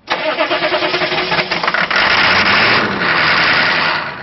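6.5-litre turbo diesel cranking on its starter and catching. It gets louder and rougher about two seconds in, then cuts off abruptly near the end. The ignition switch is worn out, so the starter keeps cranking even as the engine runs.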